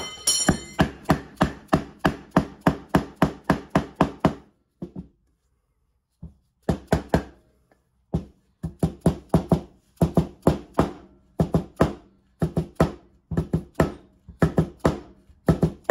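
Light, quick mallet taps, about four a second, driving a new fork seal into a 1977 Yamaha XT500 fork leg. The tapping stops for about two seconds near the middle, then picks up again at the same even pace.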